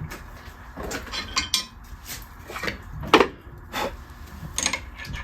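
Handling noises: scattered light knocks, clinks and rubbing as things are picked up and moved, with the loudest knock about three seconds in.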